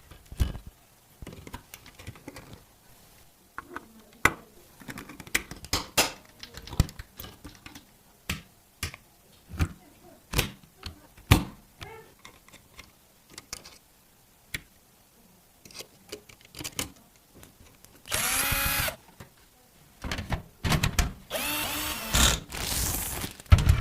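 Scattered clicks, taps and knocks of computer parts being handled and fitted together, then a small electric screwdriver whirring in short runs near the end.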